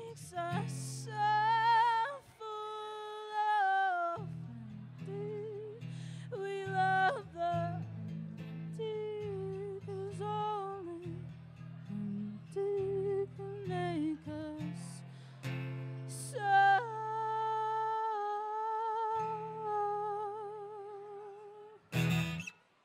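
A singer singing long held notes with vibrato over strummed acoustic guitar chords, a live solo performance. A short, loud noisy burst comes near the end as the song closes.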